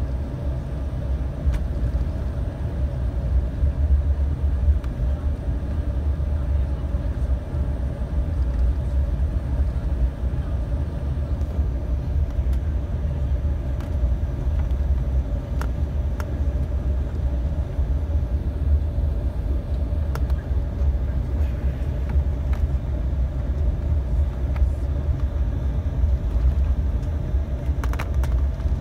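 Cabin noise inside an Embraer 195 airliner: a steady low rumble from its GE CF34 turbofans and airflow, with a constant hum and a few faint rattles of cabin fittings.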